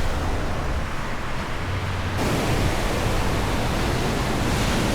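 Ocean surf rushing on a beach, a steady wash of noise with a low rumble underneath that turns brighter and a little louder about two seconds in.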